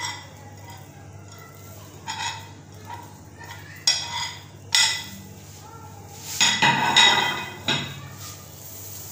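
A spoon clinking and scraping against a mixing bowl in several short bouts. The longest and loudest comes about six to seven seconds in, as a spice mix is worked into the marinade.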